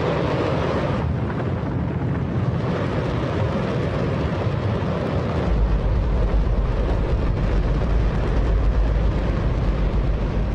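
Hydrogen-oxygen rocket engine test-firing: a steady roar, the loudest sound you could possibly conceive, with its deep rumble growing much stronger about five seconds in.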